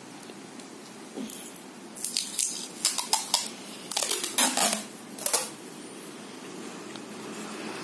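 Cardboard and clear packing tape being handled: a run of short, sharp rustling bursts, several in quick succession, over about four seconds.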